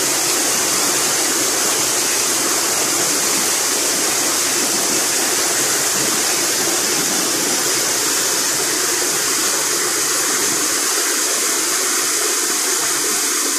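Small waterfall cascading down rock into a stream, a steady, loud rush of falling water.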